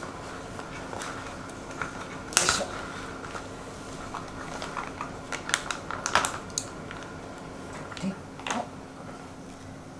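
Plastic retort food pouch rustling and crinkling as it is handled, with a sharp rustle about two seconds in, then light clicks and taps of chopsticks against the pouch and pan. A steady faint hum runs underneath.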